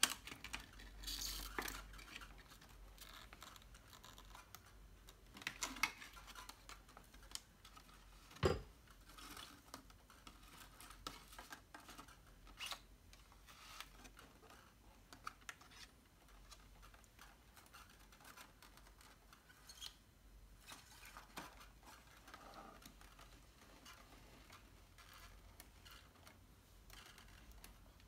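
Paper and card pieces of a pop-up book being handled: faint, scattered rustles, scrapes and small taps as flaps and pull-tabs are worked, with one louder knock about eight seconds in.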